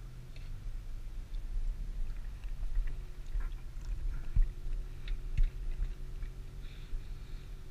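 Nissan GT-R's engine and road noise heard from inside the cabin as a low, steady rumble, with small clicks and a couple of dull knocks about halfway through.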